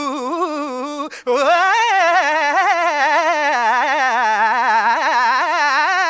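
A solo voice singing a long, drawn-out "aa" with a constantly wavering, ornamented pitch. It breaks off briefly about a second in, then holds one long note.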